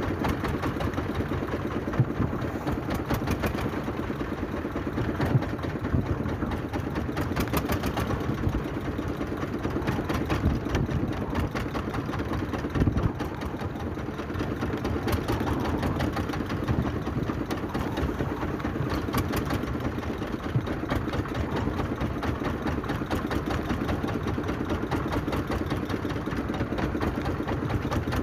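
Small fishing boat's inboard engine running steadily with a fast, even chugging, with a few sharp knocks.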